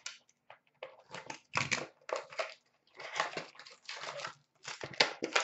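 Plastic wrapping on a hockey card box being torn open and crinkled by hand, in irregular crackling bursts.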